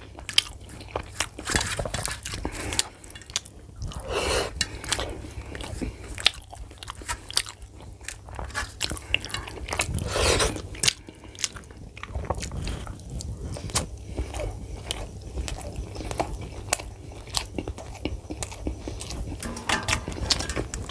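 Close-miked mouth sounds of a person eating rice and curry by hand: chewing and wet smacks throughout, with a couple of longer, louder sucking sounds about four and ten seconds in as fingers go to the mouth.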